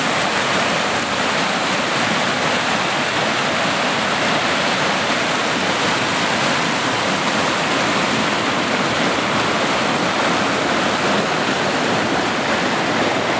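Mountain creek rushing over cobbles and small rapids: a steady, unbroken rush of water.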